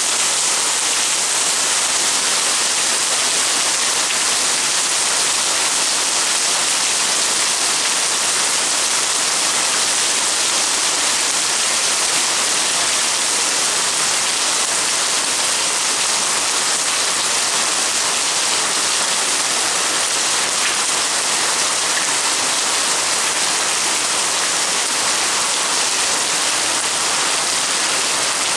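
Heavy rain pouring steadily, a loud, even hiss of downpour on roofs and paving.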